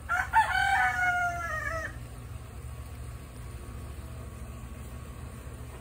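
A rooster crowing once: a couple of short notes run into one long, slightly falling held note lasting about two seconds.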